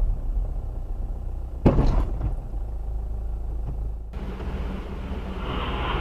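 Low rumble of a car in motion, heard from inside the cabin through a dashboard camera, with one sharp knock a little under two seconds in. About four seconds in the background noise changes abruptly to a different, steadier road rumble.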